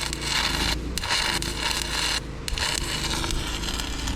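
Stick-welding arc crackling and sizzling as a 1/8-inch rod burns, breaking off briefly twice. The welder is short of power for this rod size, so the arc is burning a little cold.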